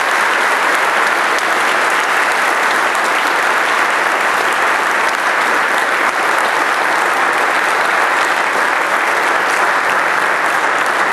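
Congregation applauding steadily: dense, continuous clapping from many people.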